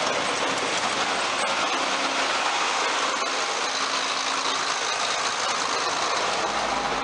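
A John Deere 4450 tractor's diesel engine running steadily at throttle, driving a forage wagon's unloading chains and beaters through the PTO, with a dense, steady rush of machinery noise.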